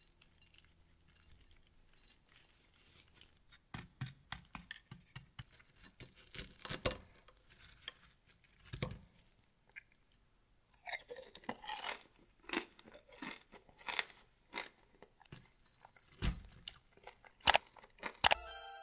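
Crispy roasted potatoes crunching: a run of irregular, sharp crackles that begins a few seconds in and comes in denser clusters in the second half.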